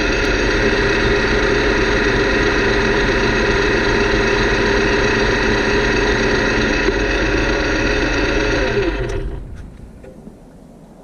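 Metal lathe turning a gear blank: a steady mechanical running sound with a strong ringing tone from the cut. About nine seconds in it dies away over roughly a second as the spindle winds down.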